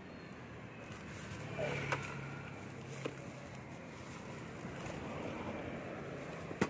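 Plastic shopping bags rustling, with a few light knocks, as goods are lifted out of a motor scooter's under-seat storage compartment. A low, steady engine hum runs underneath.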